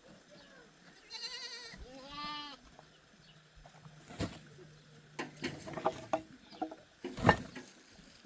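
A goat bleating twice in quick succession, each call wavering in pitch, followed by scattered clicks and knocks, the loudest a sharp knock about seven seconds in.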